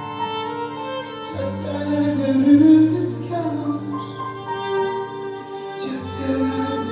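Live violin playing a sustained, sliding melody over a steady low accompaniment, with a man singing into a microphone in the latter part.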